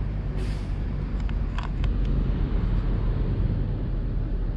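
Steady low outdoor rumble, like distant engine or traffic noise, with a brief rustle about half a second in and a few light clicks around one and a half seconds.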